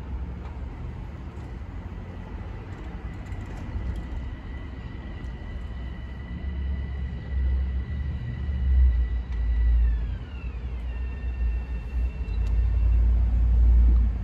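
Low rumble of an approaching Metro-North electric commuter train and road traffic, growing louder toward the end. Over it sits a high whine of several steady tones that slides down in pitch about ten seconds in, the way a passing vehicle's pitch drops.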